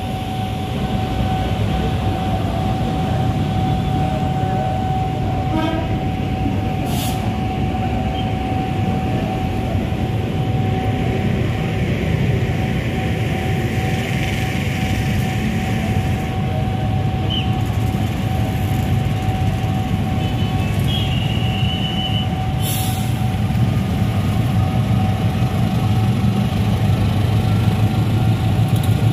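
Trains on the move: a commuter electric train rolling past, then a KAI CC 206 diesel-electric locomotive running under load as it hauls a passenger train out of the station. A steady low rumble of engine and wheels grows louder near the end. A steady high tone sounds through most of the first two-thirds.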